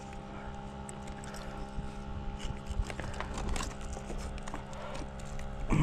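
A steady motor hum on one low pitch with a few overtones, with scattered light clicks and knocks over it.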